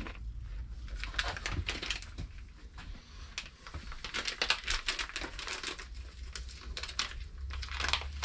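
Plastic packet of cheese being crinkled and pulled open by hand: a rapid, irregular run of small crackles.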